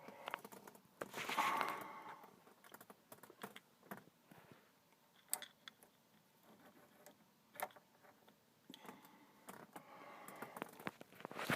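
Light clicks and scraping of hand work on a car's steering column as the ignition lock cylinder is swapped, with a few sharper ticks scattered through.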